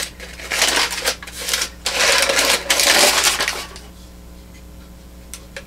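Brown kraft paper crinkling and rustling in rapid bursts as a wrapped item is pulled out of it by hand, stopping about three and a half seconds in.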